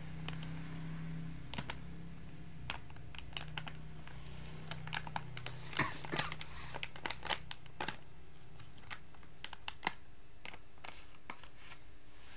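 A toddler's hands working a soft plastic pack of baby wet wipes: crinkling of the plastic wrapper and a run of short, sharp clicks and taps from the flip-top lid, busiest around the middle.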